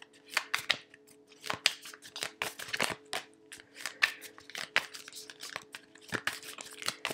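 A tarot deck being shuffled by hand: a run of quick, irregular flicks and riffles of cards.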